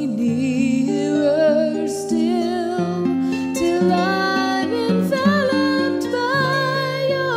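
Slow worship song: a held melody with vibrato over sustained plucked-string chords, playing continuously.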